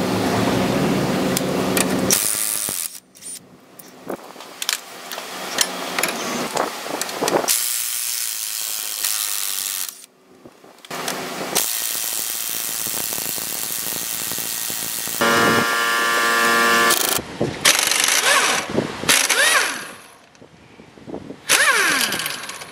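Cordless and pneumatic impact wrenches working on the front suspension bolts of a Nissan Tiida. There are several bursts of hammering and motor whine, with sharp metallic clicks and clanks of hand tools between them.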